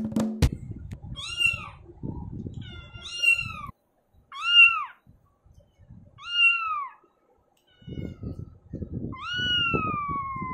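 A cat meowing five times: four short rising-and-falling meows roughly every one and a half to two seconds, then a long drawn-out meow near the end. Low rough noise comes and goes underneath.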